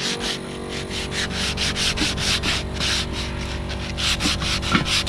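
Hand sanding the rusty steel axle of a disc harrow with abrasive paper: quick back-and-forth rasping strokes, coming faster from about four seconds in.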